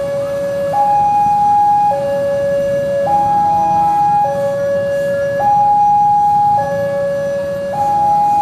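Railway level-crossing warning alarm sounding a two-tone high-low signal, switching between the two pitches a little more than once a second: the crossing is warning of an approaching train. A low rumble runs underneath.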